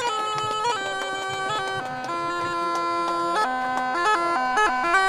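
Bagpipes playing a melody, the notes changing in steps.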